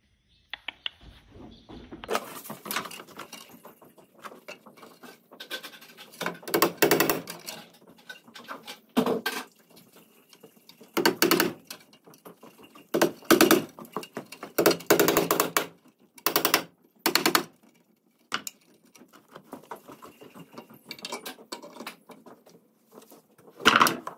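Hammer blows in short bursts at irregular intervals, nailing a washing-machine outlet box's metal mounting brackets to wooden wall studs.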